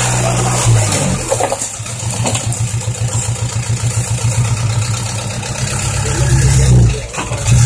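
Six-wheel dump truck's diesel engine, held at steady high revs for the tipper's hydraulic lift, then dropping in pitch about a second in. It settles into a pulsing, labouring note that grows louder as the truck creeps forward with its bed raised, and dips briefly near the end.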